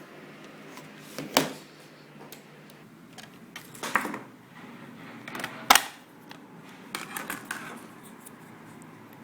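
Sharp plastic clicks and knocks of a laptop being taken apart by hand, its battery and parts unlatched and handled. Three loud clicks come a couple of seconds apart, followed by a few lighter ticks.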